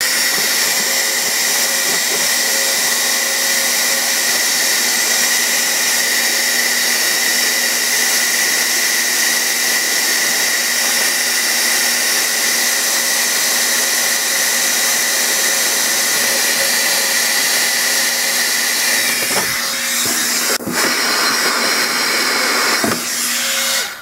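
Hand-held hair dryer running steadily, blowing hot air into a freezer's iced-up vents to melt the ice: a constant whirring hiss with a steady hum. The sound shifts briefly near the end, with a sharp click.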